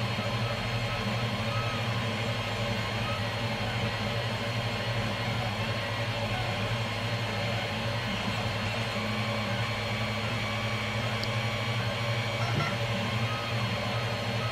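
TEVO Tornado 3D printer running a print: its stepper motors whine in short rising and falling arcs as the head moves, over a steady hum of the fans.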